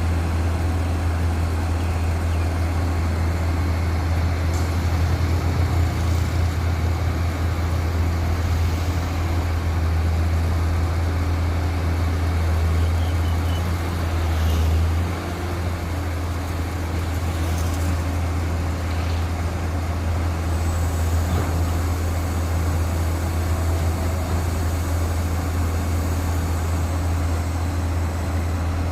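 Diesel engine of a Sunward SWDM 360H rotary drilling rig running steadily with a deep hum, its note shifting and dipping briefly about halfway.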